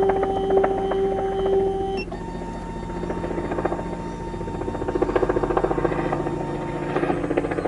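SEC E9 key cutting machine's motors driving the clamp carriage: a steady whine with a fast pulsing texture that changes pitch about two seconds in and again near the end.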